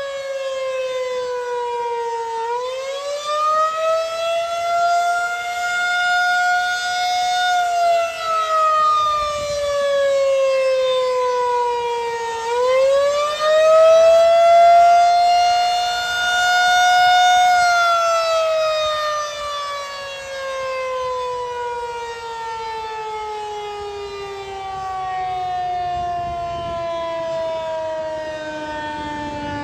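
SRNB outdoor tornado warning siren sounding its noon test. Its wail rises sharply in pitch, holds, falls away, rises again about halfway through, then winds slowly down over the last ten seconds.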